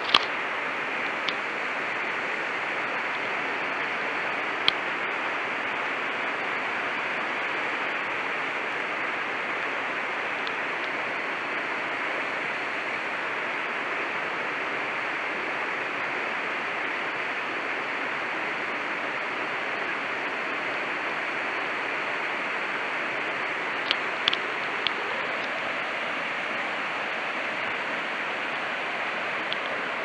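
Steady rush of a small waterfall falling down a rock face, with a few sharp clicks: one at the very start, one about five seconds in, and three close together near the end.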